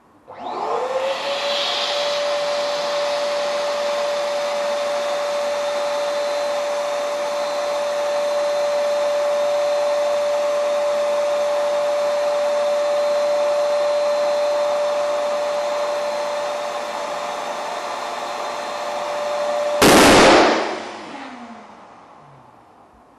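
Electric balloon pump running steadily with a constant hum, inflating a large balloon until it bursts with a loud bang about 20 seconds in. After the bang the pump motor winds down, its pitch falling away.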